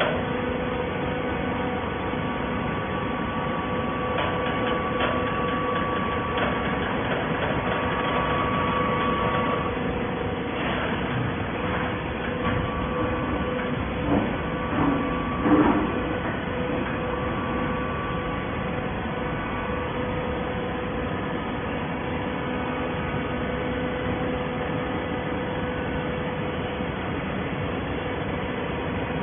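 Waste paper baler running: a steady machine hum with a held whine. There are a few louder knocks about halfway through.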